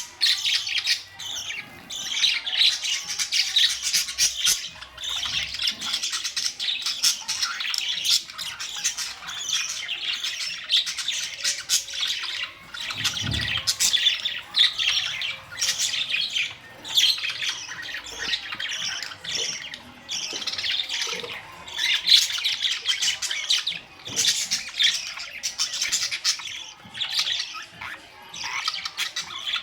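Budgerigars chattering continuously, a dense mix of warbling, chirps and harsh squawks with no pauses.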